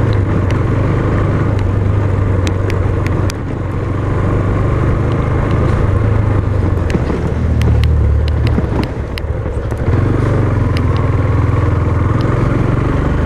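Yamaha Fazer motorcycle engine running steadily while riding slowly along a dirt road, its note easing off briefly about three seconds in and again near nine seconds. A few sharp ticks are scattered through it.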